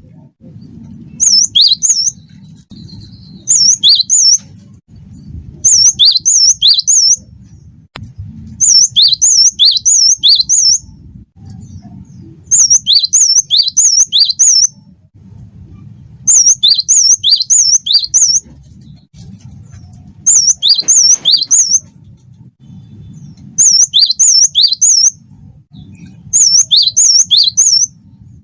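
Cinereous tit (gelatik batu) singing: repeated short bursts of three to five sharp, high, down-slurred whistled notes, a burst every two to four seconds. A faint low hum runs underneath.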